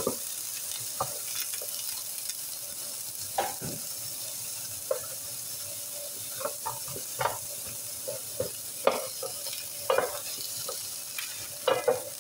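Peas, diced carrots and edamame sizzling in oil in a nonstick electric skillet, with a steady hiss, while a wooden spoon stirs them, scraping and knocking against the pan about once a second.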